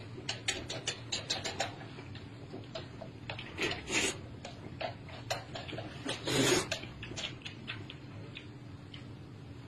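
A person noisily eating noodles: a quick run of wet chewing and lip-smacking clicks, with a longer slurp about four seconds in and a louder one a little after six seconds.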